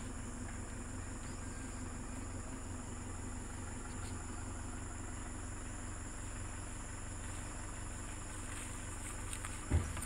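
Pickup truck engine running at low speed as the truck crawls along a rough farm track, heard from the open bed as a steady low rumble. A single thump near the end.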